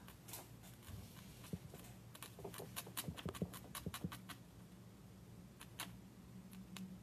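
Felting needle repeatedly punching wool into a cellulose sponge pad: faint, irregular ticks and scratchy pokes, several a second, over a faint steady hum.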